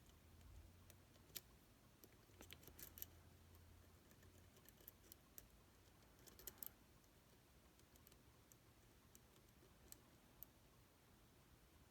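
Faint, sparse metallic clicks and ticks of a lock pick and tension wrench working the pin stack of a Zeiss Ikon SK6 Extra lock cylinder, with small clusters of clicks about two and a half and six and a half seconds in.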